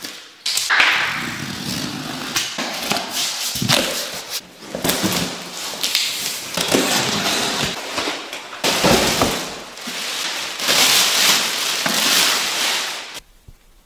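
Unboxing noise: a utility knife slitting packing tape on a cardboard box, then the cardboard flaps pulled open and a foam packing block lifted out, a run of scrapes, crackles and knocks. It cuts off suddenly shortly before the end.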